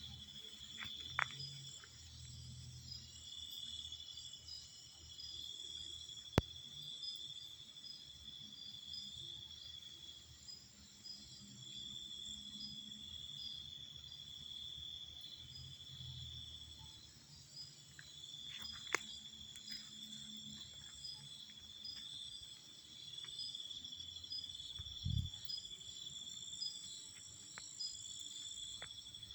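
Insect chorus of crickets chirping steadily in high, pulsing trills, with a few sharp clicks and one low thud near the end.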